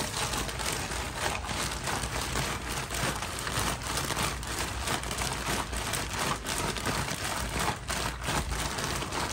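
A zip-top plastic bag of cut fruit with sugar and a little water shaken about by hand, the plastic crinkling steadily as the contents slosh inside, dissolving the sugar for fermenting fruit bait.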